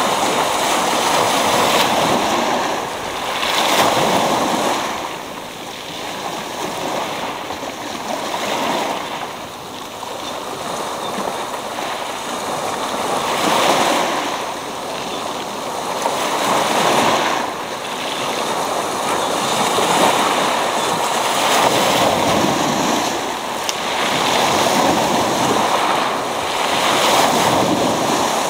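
Sea waves breaking on a pebble beach: a continuous wash of surf that swells every three to four seconds as each wave breaks and runs up over the stones.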